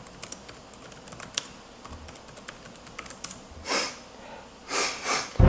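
Scattered light clicks of typing on a computer keyboard, then three short noisy rushes near the end.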